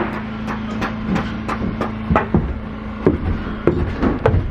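Hammer blows on the wooden boards of a log cabin being torn down: a quick, uneven run of sharp knocks, about three a second. A steady low hum runs underneath.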